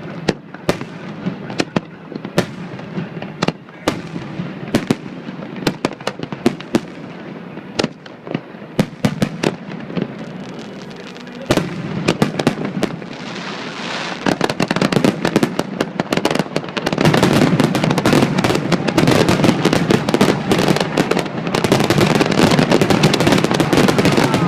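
Aerial fireworks display: sharp separate bangs for the first half. Then dense crackling builds from about halfway, turning into a loud, almost continuous barrage of rapid bursts over the last several seconds.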